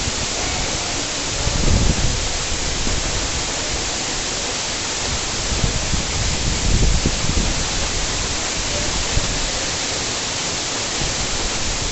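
Waterfall: a steady rush of falling water, with a few brief low rumbles.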